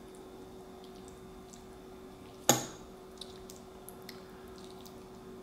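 A fork strikes a plate once, sharp and loud, about two and a half seconds in, followed by a few faint light ticks as it breaks into the flaky fish. A faint steady hum runs underneath.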